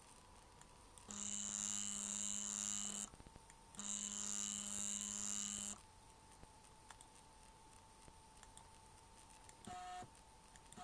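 Stepper motors driven by Pololu drivers on a RAMPS 1.3 board, stepping at a constant rate and giving a steady electronic whine. There are two runs of about two seconds each with a short pause between, then a brief, higher note near the end.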